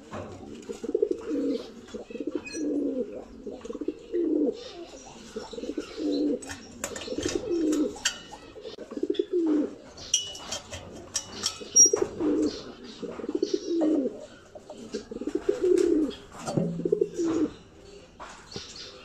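Domestic pigeons cooing over and over, a low rolling coo about every one to one and a half seconds, with scattered sharp clicks and taps in between.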